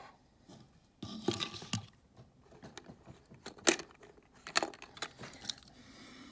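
Die-cast Hot Wheels toy trucks being handled and set down among others: a short rattle about a second in, then several sharp clicks of the small metal cars knocking together and on the surface, the loudest about halfway through.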